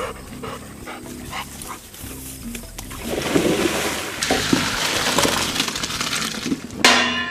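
Labrador retrievers splashing through the water of a pond, over light background music.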